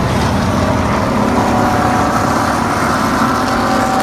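A pack of NASCAR stock cars' V8 engines running past on the track, loud and steady.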